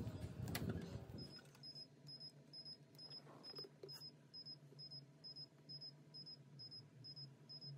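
Faint, short, high electronic beeps repeating evenly about twice a second: the Mazdaspeed 3's warning chime sounding with the driver's door open and the key on. A low steady hum runs underneath.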